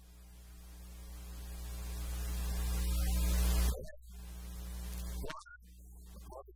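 Electrical mains hum with hiss, growing steadily louder for about four seconds, then cutting out abruptly; it comes back briefly and cuts out again about five seconds in.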